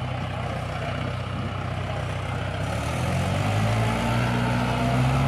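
Tractor's diesel engine labouring as it pulls a trolley heavily loaded with logs. About three seconds in it revs up and grows louder, then holds at the higher pitch under load.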